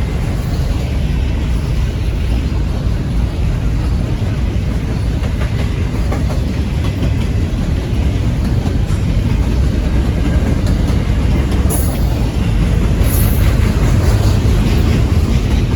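Norfolk Southern intermodal freight train rolling slowly past, a steady low rumble of wheels on rail. Two brief sharp high noises come just before the twelve- and thirteen-second marks.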